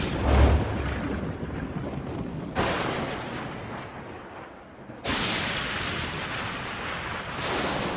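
Thunder-and-explosion sound effects from an animated video intro: a heavy low boom just after the start, then fresh crashes about two and a half seconds apart, each dying away in a long rumble.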